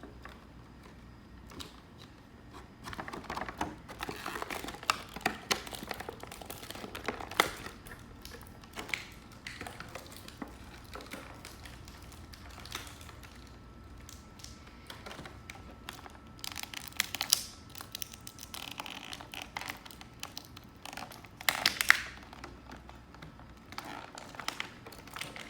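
Plastic packaging and cardboard crinkling and crackling in irregular bursts, with small clicks and taps, as an action figure and its accessories are handled and taken out of the box.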